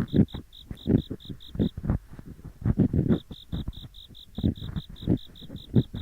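Ear picks scraping in both ears at once, in irregular gritty strokes: gori-gori ear-cleaning ASMR. Behind them an autumn insect chirps in short even pulses, about five a second, which stop for about a second and a half near the start and then resume.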